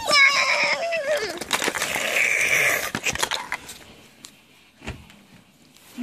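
A child's wailing voice, falling in pitch, then a breathy hiss, with a few faint knocks in the quieter second half.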